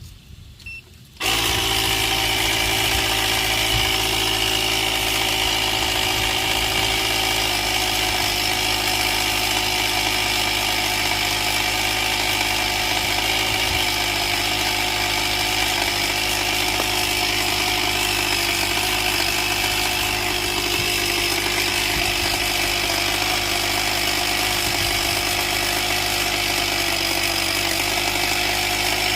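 Portable tire air compressor switching on about a second in and running steadily with a constant motor hum and whine, pumping air into a leaking car tire.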